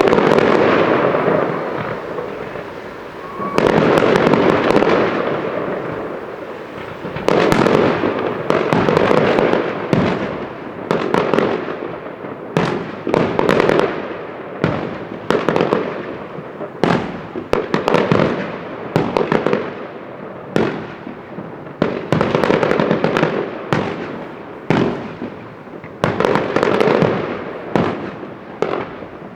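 Aerial fireworks bursting one after another, each a sudden bang that trails off into a crackling, fizzing tail. The bursts come a few seconds apart at first, then quicken to about one a second.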